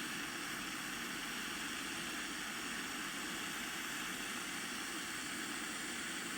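Bernzomatic butane soldering torch running with a steady hiss of escaping gas.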